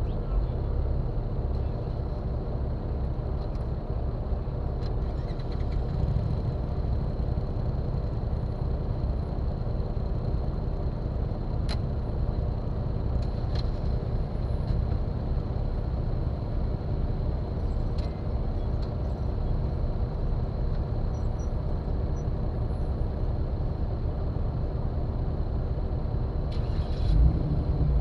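Jeep Wrangler's engine idling steadily while the vehicle stands still, heard close up through the hood, with a few faint ticks. There is a brief louder low surge near the end.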